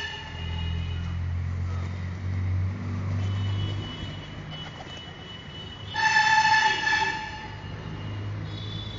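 Traffic: a vehicle's engine rumbling past, and a horn sounding once for about a second, around six seconds in.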